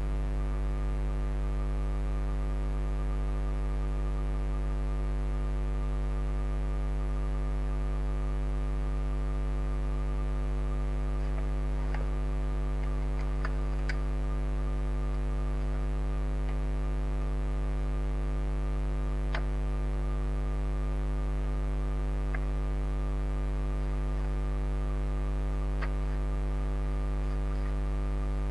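Steady electrical mains hum: a low 50 Hz buzz with a ladder of overtones above it. A few faint clicks come and go through the middle.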